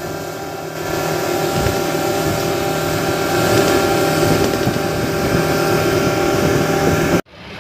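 Fishing boat under way at speed, its Suzuki 150 outboard engine running steadily under the rush of wind and bow spray splashing off the hull. The sound cuts off suddenly near the end.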